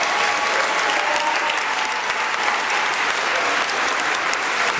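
Audience applauding steadily, many hands clapping at once, with voices murmuring underneath.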